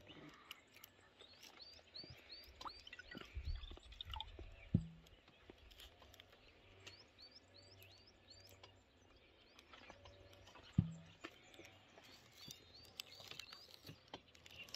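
Small songbird chirping in quick runs of short, hooked notes, repeated several times. Two sharp knocks, each with a brief low ring, land about five and eleven seconds in.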